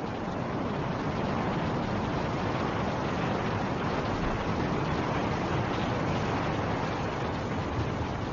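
Steady rushing of snowstorm wind, a dense even roar with no gusts or breaks, swelling slightly in the first second.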